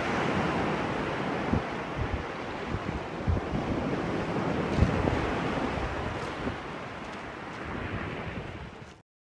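Small sea waves breaking and washing up a shingle beach, with wind buffeting the microphone in low thumps. The sound cuts off suddenly near the end.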